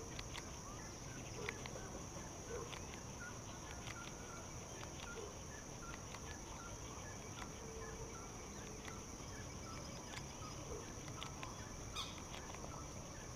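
Faint open-air pond ambience: birds calling with short repeated notes over a steady high-pitched hum, with a few light ticks.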